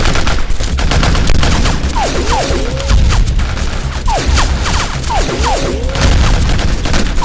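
Sound-effect machine-gun fire: a rapid, continuous string of shots, with groups of falling whistles like bullets flying past or ricocheting breaking in several times.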